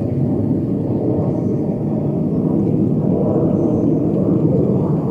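Distant jet engines of the Thunderbirds' F-16 fighters, heard as a steady low rumble.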